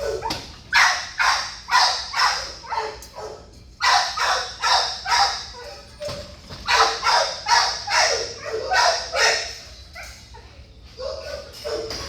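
Dog barking repeatedly in quick runs of sharp barks, about two a second, with a short lull about ten seconds in.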